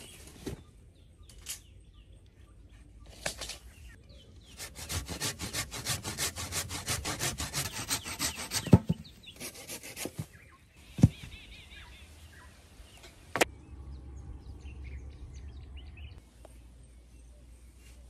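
A wooden pole worked by hand with rapid rasping strokes, about five a second for several seconds, then three sharp knocks.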